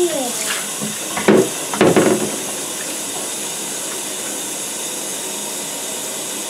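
Water running steadily from a handheld shower sprayer into a bathtub. There are two brief knocks a little over a second in, as the metal sprayer head is set down in the tub.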